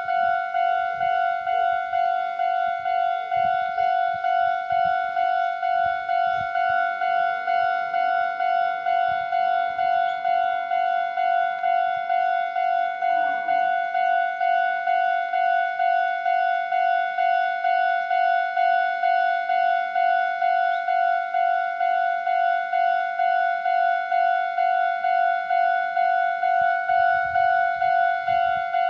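Japanese railway level crossing warning bell ringing, a rapid, evenly repeated electronic ding, which signals that a train is approaching and the crossing is closing.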